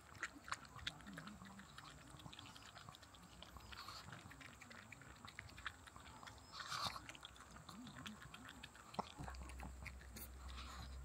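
Dog eating soup from a bowl, lapping up broth and chewing: faint, wet, irregular clicking and slurping, a little louder about seven seconds in.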